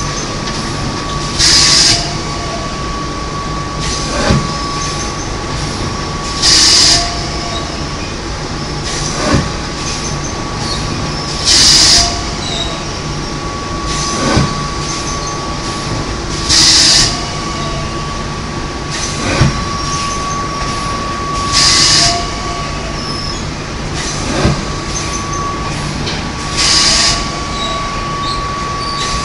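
Paper pulp egg tray moulding machine running with a steady hum and a repeating cycle about every five seconds: a knock, then about two and a half seconds later a short, loud hiss of air as each set of formed trays is blown off the mould.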